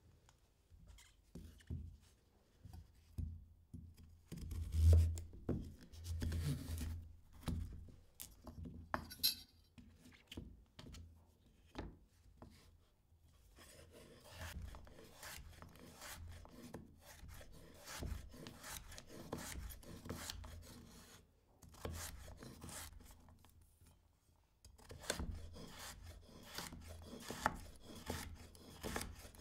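Food being prepared by hand at a kitchen worktop: irregular rasping and scraping strokes with light knocks, turning into a denser run of quick strokes near the end.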